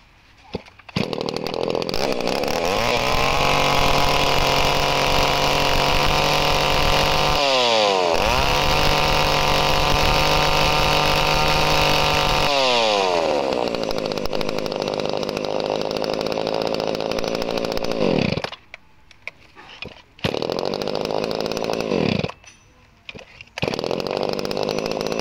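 Makita 28cc top-handle chainsaw's two-stroke engine on a test run: it comes in about a second in, revs up to full throttle twice, holding each for several seconds, then drops back to idle. Near the end the sound dips away twice for a second or two before picking up again. The engine runs crisply, in good order.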